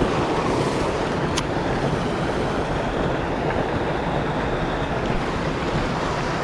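Fast river rapids rushing steadily, with wind buffeting the microphone. A single sharp click about a second and a half in.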